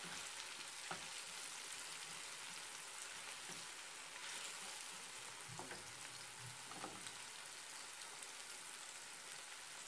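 Onions and frozen tomato pieces sizzling faintly in oil in a frying pan, with a few light knocks of a spatula against the pan.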